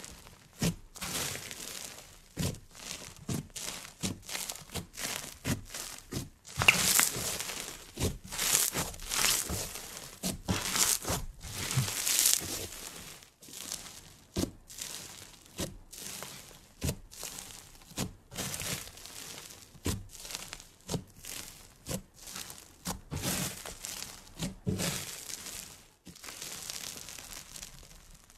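A hand kneading and pressing a lump of porous yellow slime, giving irregular crackling and squishing with each squeeze. The sounds come in uneven clusters, loudest and densest about a quarter to nearly halfway through.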